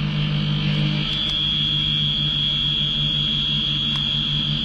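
CNC turn-mill machine cutting a metal shaft with a spindle-mounted milling cutter: a steady high-pitched cutting whine that comes in strongly about a second in, over a low machine hum that pulses evenly.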